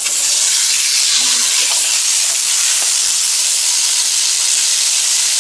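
Raw ground pork sizzling in a hot frying pan with no oil, a loud, steady hiss as its fat begins to render out.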